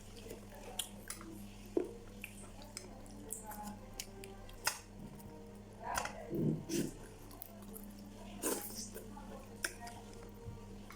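Person eating close to the microphone: scattered clicks and smacks of chewing and utensils, with a short voiced sound about six seconds in. A steady low hum runs underneath.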